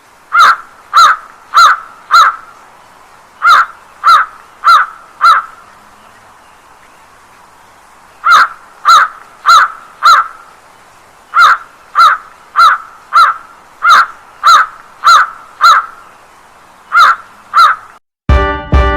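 A bird's short, loud, repeated calls, about two a second, in runs of two to seven with pauses between the runs.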